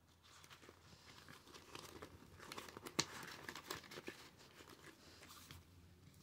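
Faint rustling and crinkling of paper cash and envelopes being handled, with scattered small taps and one sharper click about three seconds in.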